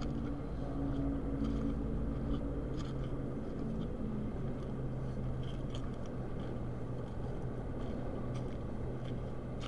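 A vehicle engine idling steadily, a low hum with a pitched tone; the higher tones above it fade out about four seconds in.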